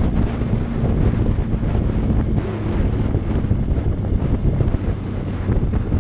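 Heavy wind buffeting the microphone at road speed, with the Yamaha R1's inline-four engine running at a steady pitch underneath.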